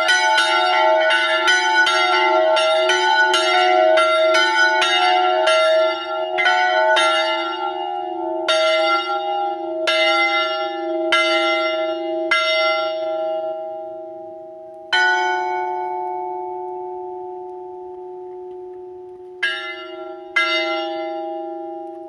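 Two small church bells, tuned E4 and F♯4 and cast by Daciano Colbachini in 1922, swinging and ringing together in quick strokes. After about six seconds the strokes slow and thin out as the ringing ends and the bells come to rest. The last single strokes come around the middle and near the end, with the hum ringing on between them.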